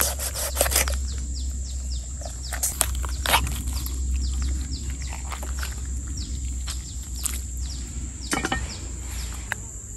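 Birds chirping, short falling chirps repeated all through over a steady high whine, with a few sharp knocks of a cleaver on a wooden chopping board as a chicken is cut up, the clearest about half a second in and again near the end.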